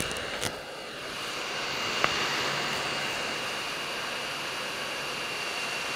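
Hot air rework station blowing at 480 °C through a 5 mm nozzle at high airflow: a steady airy hiss with a faint high whine, heating lead-free solder to lift a surface-mount chip off a circuit board.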